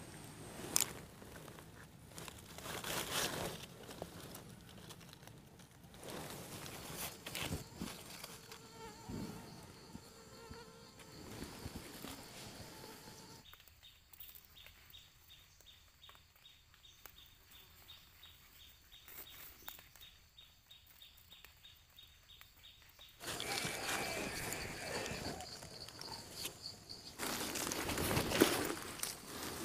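Faint insect buzzing and trilling with scattered rustles and clicks. In the middle a rapid, even insect trill runs for about ten seconds, starting and stopping abruptly.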